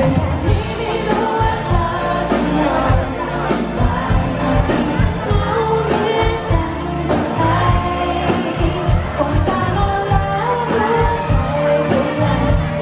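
Pop-rock song played by a band: a woman's lead vocal over drums and electric guitars, with a steady beat.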